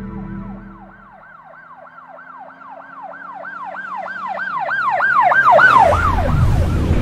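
Intro sound effect for a logo reveal: a rapid run of falling electronic chirps, about four a second, that builds in loudness. It gives way near the end to a loud rushing whoosh with a deep rumble.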